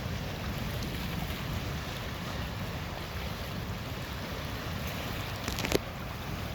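Wind buffeting the microphone as a steady low rumble, with lake waves washing in the background. There is one sharp click near the end.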